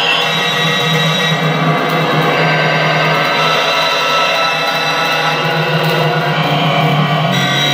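Live electronic music from a piece for clarinet and electronics: a dense, sustained layered texture of many held tones over a steady low drone.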